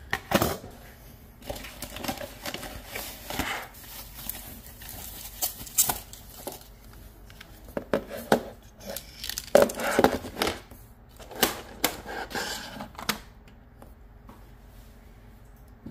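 Irregular rustling, crinkling and small clicks of hands working over thermostat wiring and parts, stopping about 13 seconds in.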